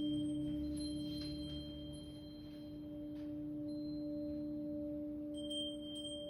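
Crystal singing bowl ringing in a long, steady sustained tone with a fainter octave above it. Faint high ringing tones come and go over it.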